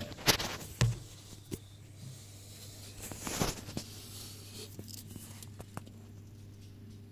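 A few sharp knocks and a short rustle over a steady low hum.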